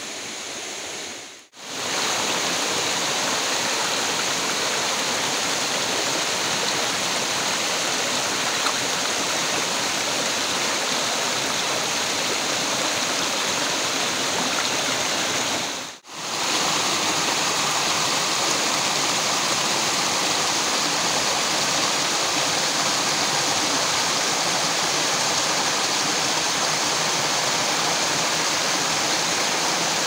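Small forest stream tumbling over boulders, a steady rush of water that is softer for the first second or two. The sound dips out briefly twice, about a second and a half in and again about halfway through.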